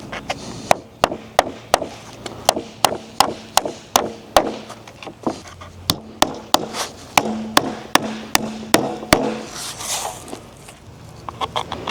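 Hammer driving small siding nails into thin wooden boards to fasten them together: steady sharp strikes about three a second, stopping about nine seconds in, then a few lighter, quicker taps near the end.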